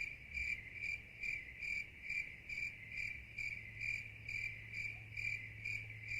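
A cricket chirping steadily, about two and a half evenly spaced chirps a second, over a faint low steady hum.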